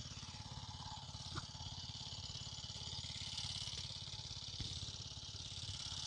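A small engine running steadily and faintly, with an even, rapid low pulsing that does not change, under a constant high hiss.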